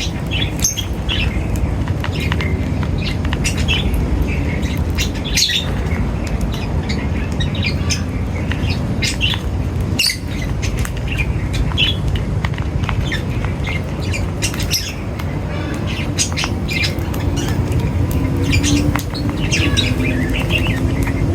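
Many small birds chirping and squawking in quick, scattered calls over a steady low rumble.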